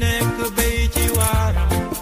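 Background music with a steady drum beat and a bass line under melodic instruments.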